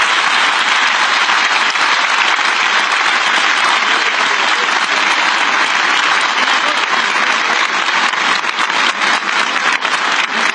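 Large crowd applauding steadily: a dense, even clatter of many hands clapping at once.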